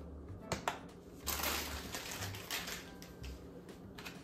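A plastic jar of marshmallows with a red plastic lid being handled on a countertop: two sharp clicks about half a second in, a short crinkly rustle, then a few lighter knocks.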